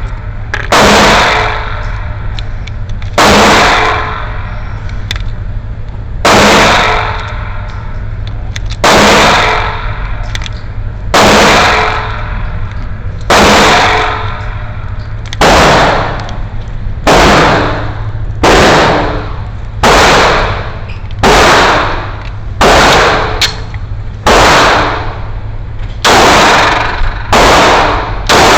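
Glock 19 Gen 6 9mm pistol fired in single shots, about seventeen over the span, spaced one to three seconds apart and coming faster toward the end, each shot ringing out with a long decaying tail. A steady low hum runs underneath.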